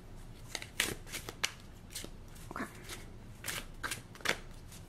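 A deck of tarot cards being shuffled by hand, a few cards at a time: an uneven run of short card snaps and slides.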